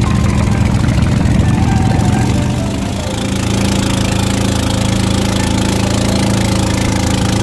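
An engine running steadily under way, easing off slightly about three seconds in and then holding a steady note.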